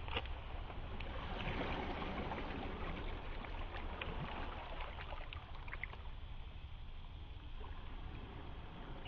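Small waves lapping and washing over a pebble shore, with a few light clicks of stones. The wash swells about a second and a half in and eases off in the second half.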